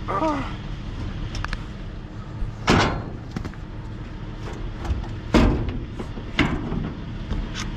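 Wicker patio chair knocking and scraping against the steel rim of a dumpster as it is hauled out, with three loud clunks and a few lighter knocks.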